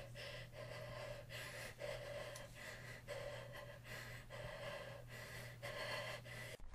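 Faint, quick breathing, about two breaths a second, in a nervous, frightened rhythm, over a low steady hum.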